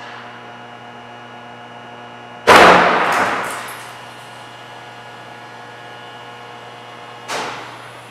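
Crash test sled run: one very loud bang about two and a half seconds in, with metallic ringing that dies away over a second and a half, over a steady hum. A shorter, weaker bang comes near the end.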